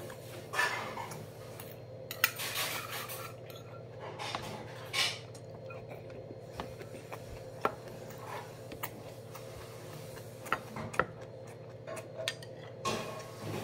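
Metal chopsticks clinking and scraping against bowls during eating, in scattered sharp clicks, over a faint steady hum.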